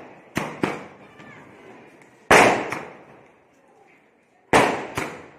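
Multi-shot firework box (sky shot) on the ground firing. Sharp bangs come in pairs: two near the start, a loud one about two seconds in with a lighter one just after, and two more near the end. Each bang has a fading tail.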